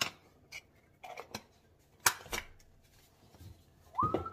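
A few short, sharp clicks and taps from a measuring spoon, spice container and zip-top plastic bag being handled while spices are spooned into the bag.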